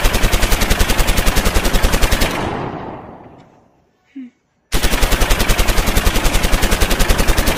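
Rapid automatic gunfire, about a dozen shots a second. The first burst fades away about three seconds in; after a short gap a second burst starts abruptly and keeps going.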